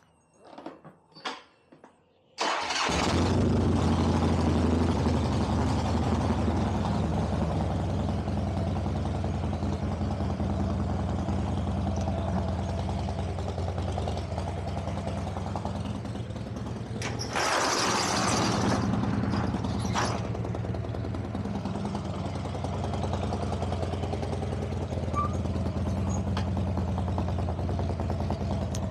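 Harley-Davidson Dyna V-twin motorcycle engine started about two and a half seconds in after a few faint clicks, then idling steadily, with a brief louder burst of noise around the middle.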